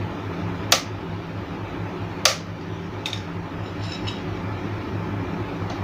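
Two sharp clicks and a few fainter ticks from the table fan's plastic push-button switch assembly being handled, over a steady low hum.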